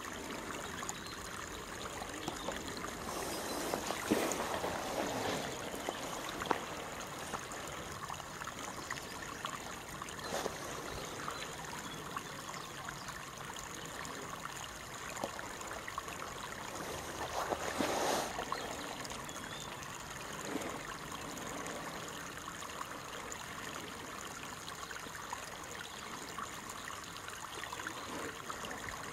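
Steady rushing, trickling noise like a small stream running, swelling briefly about four seconds in and again around eighteen seconds.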